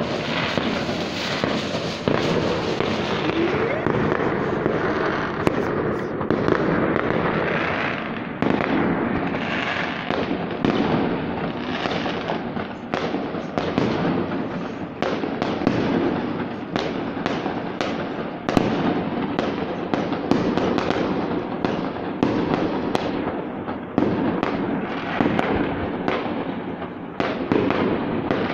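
Aerial fireworks bursting in a dense, continuous barrage of overlapping bangs and crackling, with no pause.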